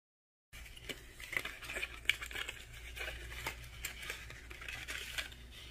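Clear cellophane wrapper crinkling as hands handle it, with small clicks and scrapes of a cardstock box being opened and its sticker seal peeled. It starts about half a second in.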